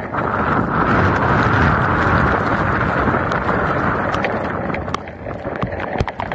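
Wind and rain rushing loudly over a camera on a moving vehicle in a severe thunderstorm. Raindrops tap sharply on the camera housing, more often in the last couple of seconds.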